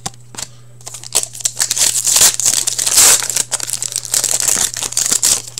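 Foil wrapper of a 2014-15 Upper Deck Artifacts hockey card pack being torn open and crinkled by hand. It is a dense crackling that starts about a second in and stops near the end, over a faint steady low hum.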